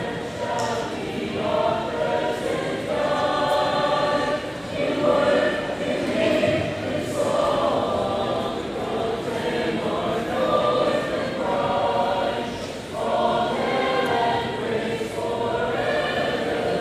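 A high school choir of boys and girls singing together in long held notes.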